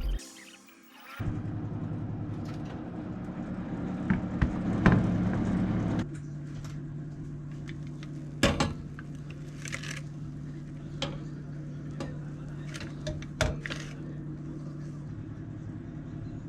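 A steady machine hum starts about a second in, swells, then settles to a lower, even tone about six seconds in, with scattered light clicks and knocks over it.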